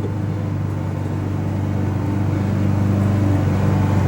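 A steady low mechanical hum, like a motor running, growing slowly louder, over a rough rattly noise.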